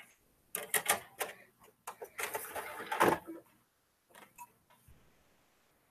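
Clicks, taps and rustling from objects being handled at a desk, coming in a quick run through the first three seconds, then only a couple of faint ticks.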